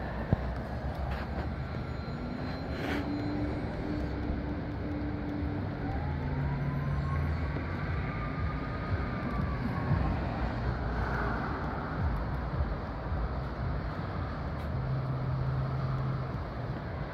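Gusty wind blowing steadily, buffeting the microphone with a heavy low rumble. A faint engine drone rises and falls in the background.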